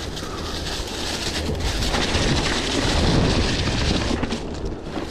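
Mountain bike tyres rolling over a trail thick with dry fallen leaves, a continuous crunching rustle over a low rumble, growing louder in the middle.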